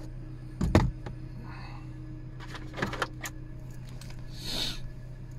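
Peugeot 308 1.6 petrol engine idling steadily, heard from inside the cabin. A loud knock comes about a second in, then a few clicks and a short rustle as equipment is handled in the car.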